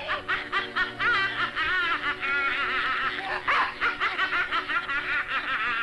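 Rapid, high-pitched cackling laughter, a cartoon sound effect for a bubbling witch's potion, over held orchestral notes.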